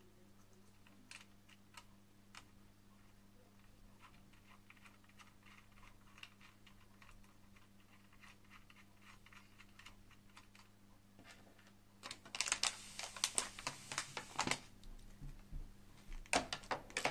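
Faint small clicks and ticks of fingers working small hex screws into a CPU cooler's mounting bracket. About twelve seconds in, a loud crinkling rustle of the motherboard's plastic anti-static bag lasts two or three seconds as the board is shifted on it, and a few sharp clicks follow near the end.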